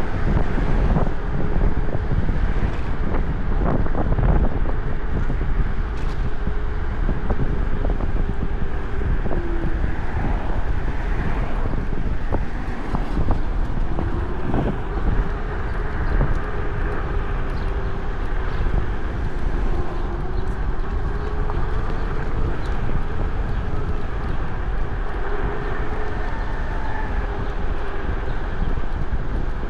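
Wind buffeting the microphone on a moving electric scooter. Under it the motor's whine drifts up and down in pitch as the speed changes.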